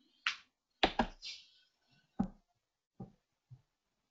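About seven short, sharp clicks at irregular intervals from a computer keyboard and mouse while a condition is entered in a software dialog.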